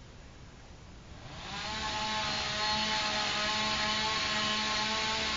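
An engine running at a steady pitch, with no rise or fall in its note. It comes up about a second in, holds for about four seconds as the loudest sound, and begins to fade near the end.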